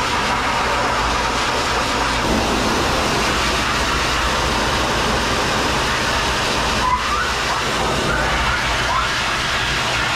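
Dog grooming dryer blowing steadily: a loud, even rush of air.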